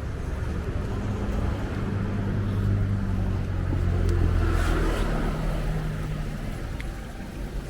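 A motor vehicle's engine running close by, a low steady hum that grows a little louder and then fades away about two-thirds of the way in, as a vehicle passing on the street would.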